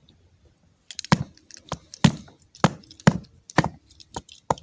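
A stick whacking a remote control: a series of sharp hard strikes, about two a second, starting about a second in.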